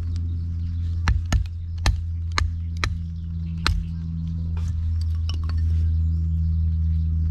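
A knife being batoned through thin sticks of wood on a log chopping block: about nine sharp wooden knocks, irregularly spaced, as a chunk of wood strikes the spine of the blade to split kindling. A steady low drone runs underneath.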